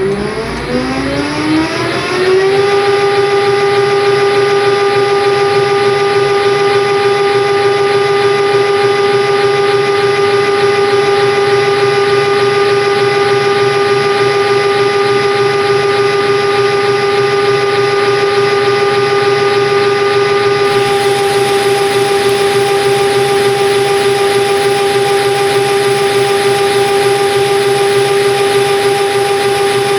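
Lathe spindle motor spinning up over about two and a half seconds, its whine rising in pitch, then running at a constant speed with a steady whine.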